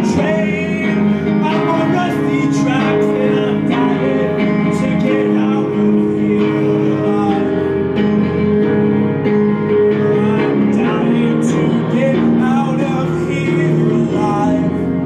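Live band music: a man singing over guitar, with sustained chords underneath, at a steady level.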